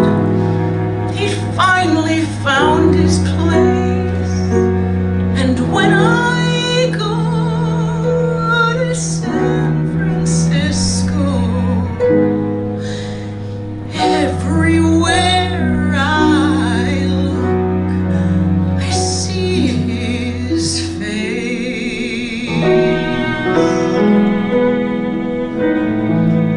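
A woman sings a slow musical-theatre ballad in long, wavering held notes over instrumental accompaniment with sustained low notes. The voice drops out about 21 seconds in, and the accompaniment carries on alone.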